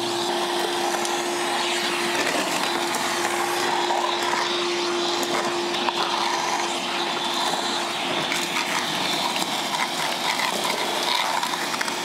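Milwaukee M12 FUEL cordless 1.6-gallon wet/dry vacuum running steadily: a constant motor hum over the rush of air through the hose, with a few faint knocks.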